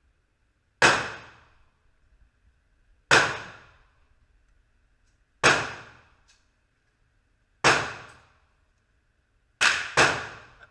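Gunshots fired one at a time, about two seconds apart, with the last two in quick succession near the end; six in all. Each crack dies away in a short echo.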